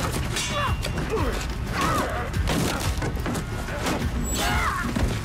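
Sword-fight sound effects: repeated clashes and thuds of blades striking wooden shields, with short yells, over background music.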